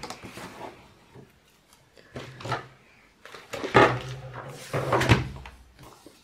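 Paper and craft pieces being handled on a table: rustling with several sharp knocks and taps. The loudest knocks come a little under 4 s in and around 5 s in.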